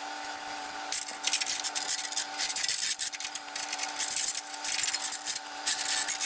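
Repeated scraping and rustling from handling gear at the front of a tractor trailer, with a steady hum under it.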